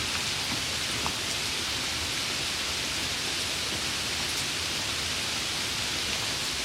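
Heavy rain falling, a steady dense hiss, with a single sharper drop tick about a second in.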